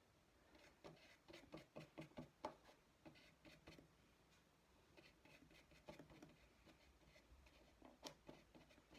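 Faint, irregular taps and scratches of a paintbrush working in a plastic paint palette and over a textured papier-mâché rock surface, busiest in the first few seconds, with a sharper tap near the end.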